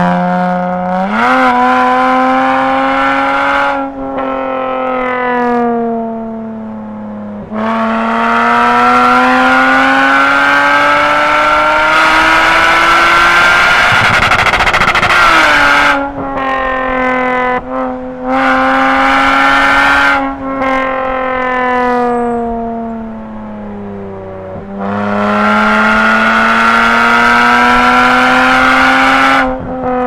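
Toyota Camry V6 with a straight-pipe exhaust under hard acceleration: four full-throttle pulls, each rising in pitch, with the engine note dropping and quieting between them as the throttle is lifted and gears change. The longest pull runs from about 7 to 16 seconds.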